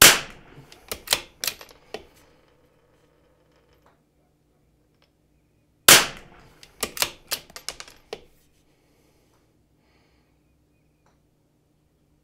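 A CZ 457 bolt-action .22 LR rimfire rifle firing CCI standard-velocity rounds, two shots about six seconds apart. After each shot comes a quick run of metallic clicks as the bolt is worked to eject the case and chamber the next round.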